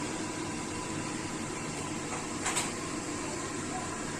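Chicken frying in butter and garlic in a pan: a steady sizzle, with one brief louder crackle about two and a half seconds in.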